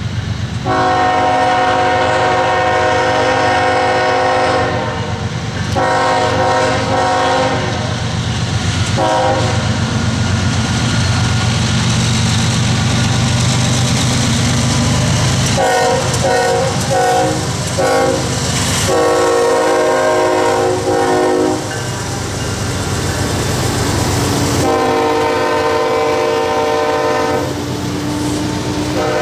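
Freight cars rolling past with a steady rumble of wheels on rail, while a multi-chime locomotive air horn sounds repeatedly. It gives two long blasts, a short one and a long one, the grade-crossing signal, then two more long blasts in the second half.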